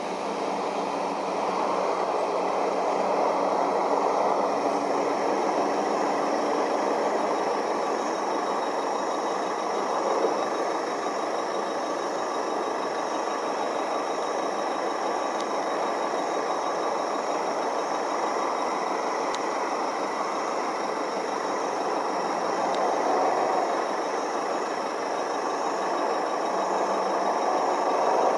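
Idling truck engines and stopped traffic: a steady, even noise with no breaks.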